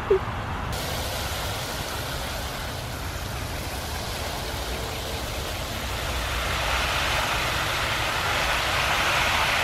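Garden hose spray nozzle hissing steadily as water showers onto leafy plants and wood-chip mulch, a little louder over the last few seconds.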